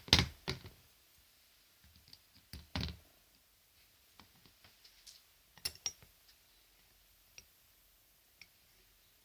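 Scattered clicks and knocks from belts and belt buckles being handled and moved about, a cluster in the first second, then more at about three and six seconds, with a few faint ticks after.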